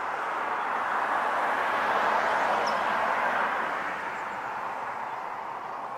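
A passing vehicle: a steady rushing tyre-and-road noise that swells to a peak about two seconds in, then slowly fades.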